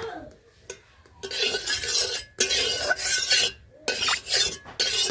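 Stirring and scraping inside a kadai of heating oil, in a run of strokes about a second long or shorter, starting about a second in.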